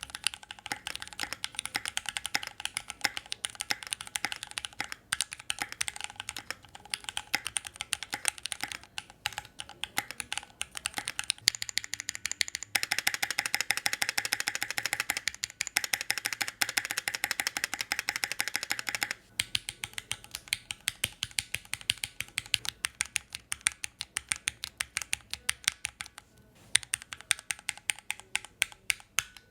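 Typing on a Keychron Q1 aluminium-bodied mechanical keyboard: a fast run of key clicks, denser and brighter for several seconds in the middle, then sparser, more separate strokes.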